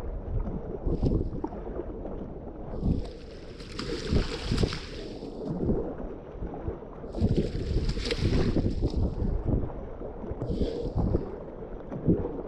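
Whitewater rushing around a kayak running a river rapid, a constant low rumble with wind buffeting the microphone. Twice the hiss of splashing water swells for two seconds or so, with a shorter splash near the end.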